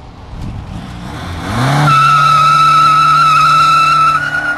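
Volkswagen Gol doing a burnout. The engine revs up, and a little under two seconds in the front tyres break loose into a loud, steady high-pitched screech over the engine held at high revs. It eases off near the end.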